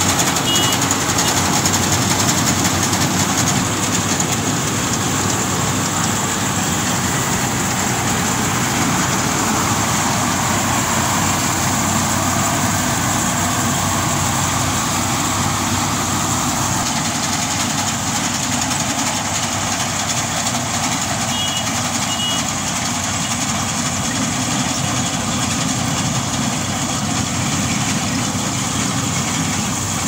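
Compact tracked rice combine harvester running steadily under load as it cuts and threshes standing rice: its engine and threshing mechanism make an even, unbroken mechanical noise.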